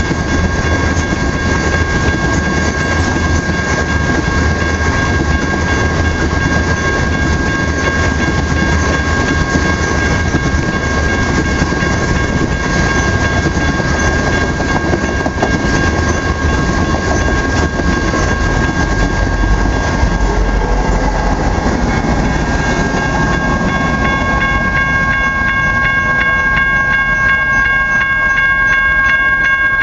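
Oil train's tank cars rolling past on the rails with a steady wheel-and-rail rumble, and a steady high-pitched ringing tone held over it throughout. The rumble thins out over the last few seconds.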